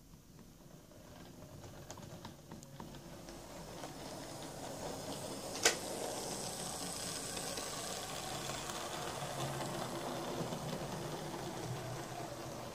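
Hornby OO gauge Class 121 DMU model running on the track: a small electric motor whirring and wheels on rails with light clicks, growing louder as the model comes close. One sharp click about halfway through is the loudest sound.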